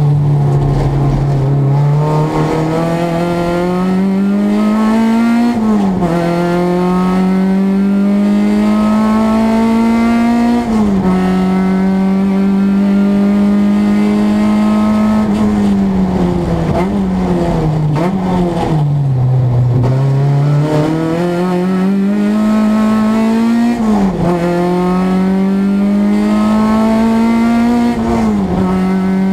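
Renault Clio race car's engine heard from inside the cabin under hard acceleration. It revs up through the gears with upshifts about five and ten seconds in, then drops down through the gears with short throttle blips under braking, then pulls up through two more gears near the end.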